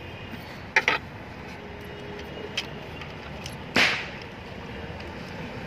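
A couple of light metallic clicks, then one short, sharp swishing snap, from hand work on an engine's spring-loaded timing-chain tensioner as its locking pin is pulled, over a steady background hum.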